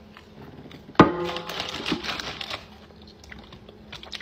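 Mouth sounds of a person eating: licking sauce off her fingers and chewing. A sudden sharp sound about a second in is the loudest moment, followed by a second or so of wet, crackly smacking.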